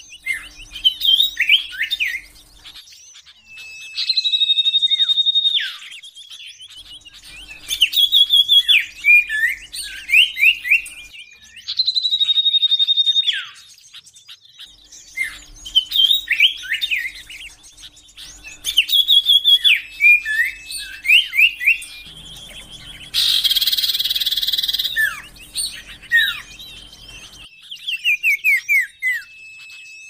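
Common iora (cipoh) singing in repeated phrases: a long, steady high whistle, then a run of quick falling notes, recurring every few seconds. About 23 seconds in comes a harsher, noisy burst lasting a couple of seconds.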